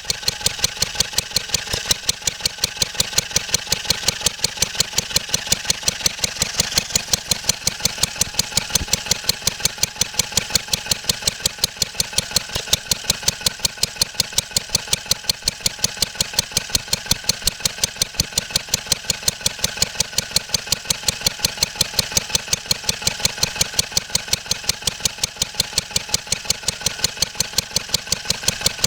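1954 Wolseley WD8 single-cylinder stationary engine running steadily on its governor, with an even firing beat of about four pulses a second.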